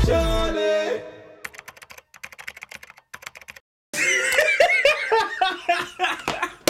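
Rapid computer-keyboard typing, a quick run of key clicks lasting about two seconds, then a person laughing through the last few seconds. The tail of a hip-hop track fades out at the very start.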